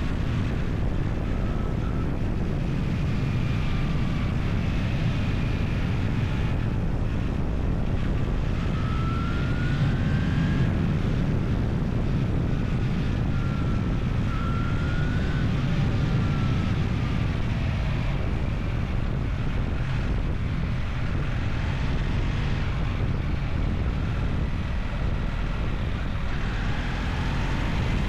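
A vehicle engine running steadily under a low rumble, with faint whines that rise and fall in pitch now and then.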